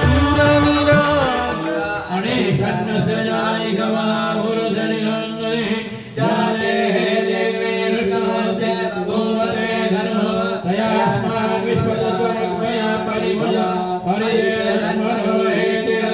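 Devotional singing over a steady low drone. The drumming of the music before it drops out about two seconds in.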